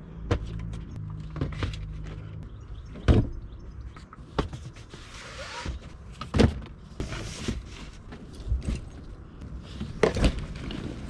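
Several loud sharp thunks, four standing out, over a low steady hum.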